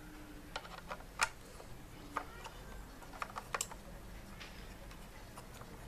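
Small sharp clicks and taps as a Wi-Fi antenna is handled and screwed onto the threaded gold connector of a Minix Neo X8-H Plus TV box, clustered in the first four seconds with the loudest about a second in.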